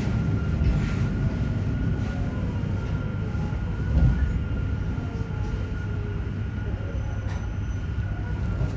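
Interior running sound of a JR Hokkaido 731-series electric car, MoHa 731-109: a steady low rumble of wheels and traction motor with a thin steady whine and faint gliding motor tones, and one thump about four seconds in. A motor on this car's Otaru-end bogie makes an abnormal roar likened to an old nose-suspended (tsurikake) motor.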